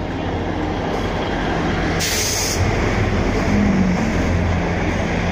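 GWR Class 158 diesel multiple unit running in along the platform as it arrives at the station: a steady low diesel engine hum with the rumble of wheels on rail, loudest as the coaches pass close by. A short, sharp hiss of air cuts in about two seconds in.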